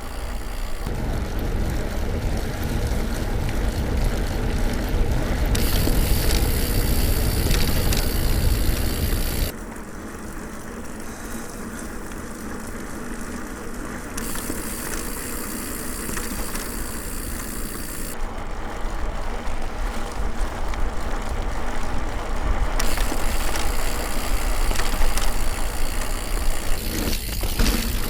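Mountain bike riding noise picked up by a GoPro camera's microphone: a steady rush of trail and tyre noise, with wind buffeting the microphone as a low rumble during the first nine seconds or so. The tone changes abruptly every four to five seconds as the sound cuts between recordings from different cameras.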